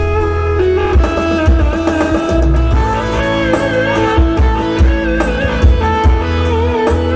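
Live dance music from an electronic keyboard band, with a heavy bass beat under held and wavering melody lines.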